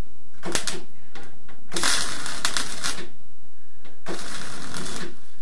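Welding on a car's outer sill panel in three crackling bursts: a short tack about half a second in, a longer run of over a second near the middle, and another of about a second near the end.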